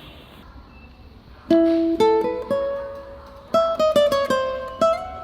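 Background music of a plucked string instrument: after a quiet first second and a half, single notes ring out and fade, then a quicker run of plucked notes follows.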